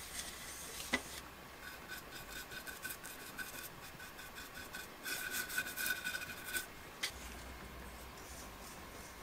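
Paintbrush bristles scrubbing alcohol-diluted pigment stain into carved wood: a dry, scratchy rubbing in repeated strokes, with a sharp tick about a second in. The scrubbing stops after about seven seconds, following another tick.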